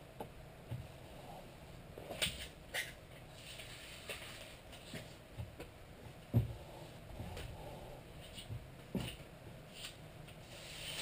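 Self-adhesive aluminum flashing crinkling and rustling as it is handled and pressed down by hand onto plywood. Scattered light taps run through it, with a louder thump about six seconds in.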